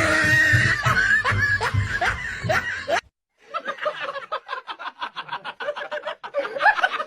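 A person laughing in quick, short repeated bursts, snickering, after a cut from a few seconds of a pitched voice with rising glides.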